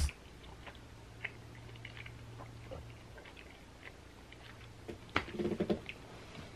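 Quiet small-room tone with faint scattered clicks and rustles, and a low steady hum that stops about three seconds in. About five seconds in comes a brief, louder cluster of sound with a short murmur-like tone in it.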